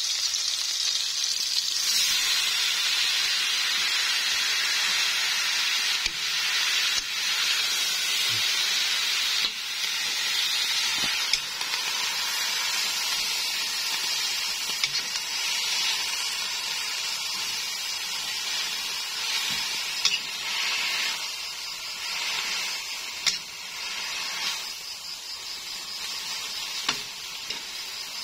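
Garlic and tomato sizzling in hot oil in a nonstick wok, then kangkong (water spinach) leaves frying as they are tossed with metal tongs. A steady hiss, with a few sharp clicks of the tongs against the pan.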